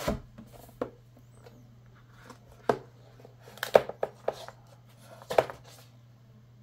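Hands handling a cardboard box and lifting out a tablet in its paper wrap: scattered light knocks, taps and rustles, the sharpest in a cluster near the middle, over a faint steady low hum.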